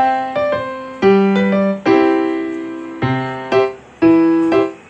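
Background piano music: single notes and chords struck about once or twice a second, each fading away after it is struck.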